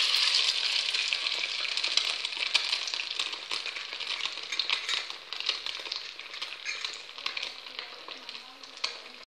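A potato patty coated in beaten egg frying in hot oil in a wok, sizzling with a dense run of fine crackles. It is loudest just after it goes into the oil and slowly dies down.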